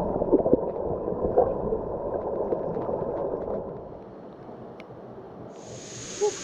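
Pool water splashing and gurgling, muffled and dull, with small clicks in the first second and a half. About five and a half seconds in, the steady rush of the waterfall cuts in.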